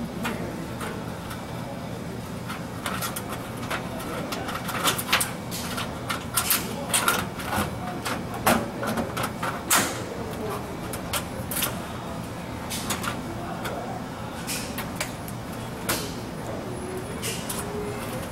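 A fluorescent light fixture's metal cover being handled and fitted back on: a string of sharp metal clicks and clanks, thickest in the middle, over a steady low hum.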